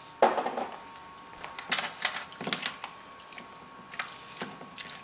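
A clear plastic spoon stirring a thick, creamy chicken pot pie filling in a stainless steel mixing bowl, with irregular clicks and scrapes against the metal. A knock about a quarter second in.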